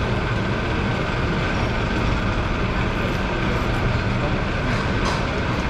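1896 single-truck streetcar No. 578 running along the track: a steady noise of steel wheels on rail and its GE 1000 traction motors, with a faint steady whine over it.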